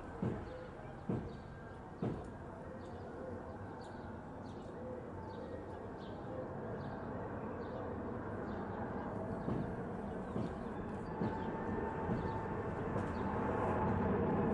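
Four GE GEnx turbofans of a Boeing 747-8 on final approach, a steady jet rumble growing louder as the airliner comes in overhead, with a hum rising out of it in the last few seconds. A few short thumps sound in the first couple of seconds.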